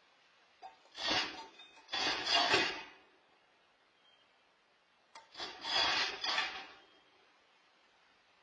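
A groundhog gnawing and scraping at the wire legs of a small charcoal kettle grill. The rasping comes in two spells of several strokes each, about a second in and again about five seconds in, each lasting a second or two.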